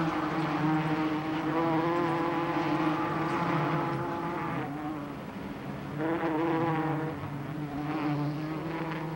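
Honeybees buzzing at the hive: a steady droning hum that wavers slightly in pitch, sinks for a moment about five seconds in, then swells again.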